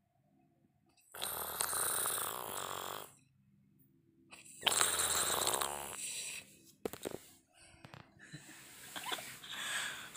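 A sleeping person snoring very loud: two long, rasping snores a few seconds apart with near-silent pauses between them, then quieter breathing near the end.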